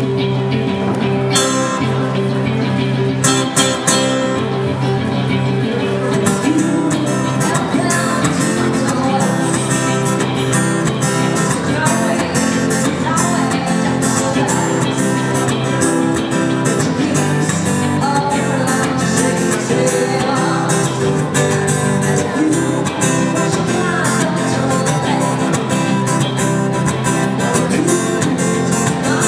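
Live country band music: electric guitars over a steady beat, with a woman singing into a microphone.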